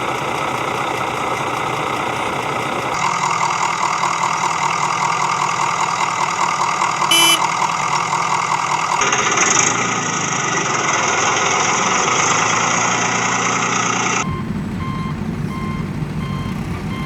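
A heavy diesel machine engine runs steadily and changes its note a couple of times, with a brief sharp clank about seven seconds in. In the last few seconds a reversing alarm beeps at an even pace over a lower engine rumble.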